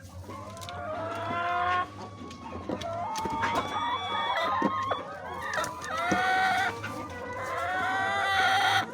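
Roosters crowing, about four long crows one after another, with the last one loudest, among chickens clucking.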